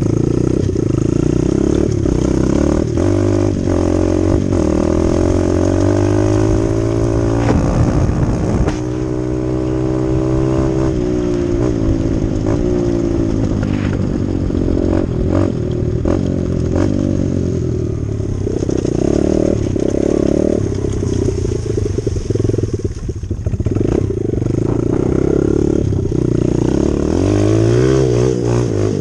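Dirt bike engine running while being ridden, its revs rising and falling again and again through the gears, with scattered knocks and rattles.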